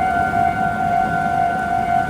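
Japanese railway level-crossing alarm ringing, its electronic tone repeating at an even pace, over a low rumbling noise.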